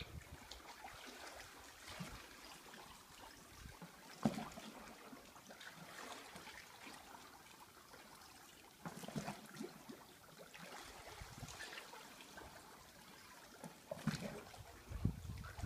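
Swimming-pool water sloshing and lapping against the pool edges, stirred up by earthquake shaking. It is faint, with a few louder surges.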